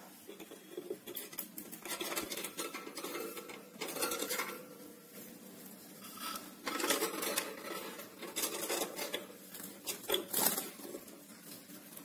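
Cockatiel scratching and scuffling in and around a wooden nest box: irregular bouts of scraping and quick clicks of claws and beak on wood.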